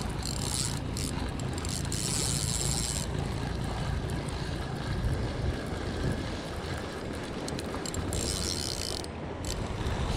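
Spinning reel being cranked to wind in line, its gears turning, over a steady low rumble.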